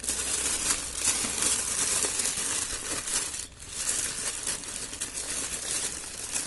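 Clear plastic bag crinkling and rustling as hands handle it, with a brief lull about halfway through.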